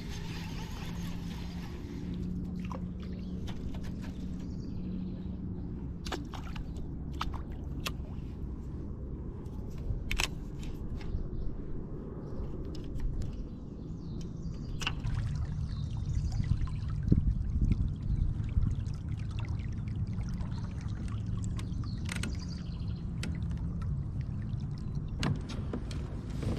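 Water trickling and lapping against a kayak hull under a low steady hum, with scattered sharp clicks and taps from handling a baitcasting reel and rigging a soft-plastic lure.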